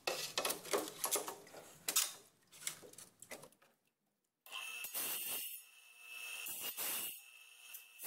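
Knocks and clatter of a ceramic tile being handled for the first few seconds. After a short gap, a QEP wet tile saw's diamond blade grinds into the back of the tile with a steady, high ringing tone that dips and returns several times.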